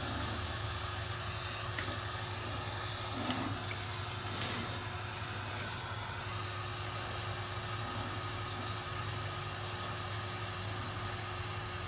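Milling machine running steadily with the end mill turning but not yet cutting, a constant hum with a few faint small ticks.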